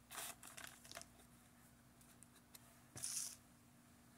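Faint crinkling of the torn plastic wrapper of a 1991 Fleer basketball card pack as it is handled, with another short crinkle about three seconds in.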